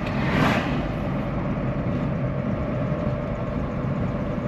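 Steady low rumble of a vehicle moving along a road, engine and road noise together, with a brief rush of hiss about half a second in.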